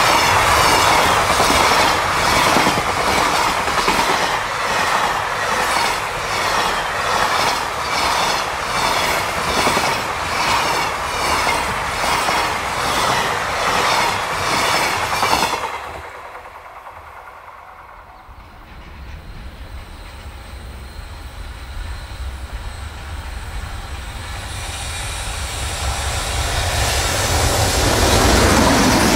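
Loaded container flat wagons of a freight train passing close by, wheels making a fast, regular clickety-clack, until the sound cuts off suddenly about halfway. After a quieter lull, the next freight train, led by an EH500 electric locomotive, approaches, its rumble building steadily toward the end.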